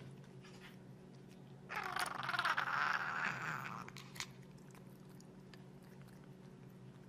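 Cat licking sticky food off a plastic spoon and smacking its mouth, with a louder stretch of wet smacking from about two seconds in to about four seconds. A faint steady hum sits underneath.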